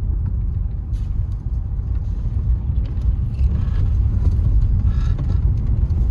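Inside the cabin of a 2006 Scion xA, its 1.5-litre 1NZ-FE four-cylinder engine running at low speed with a steady low rumble of engine and road, now without its misfire after a new ignition coil, as the owner thinks.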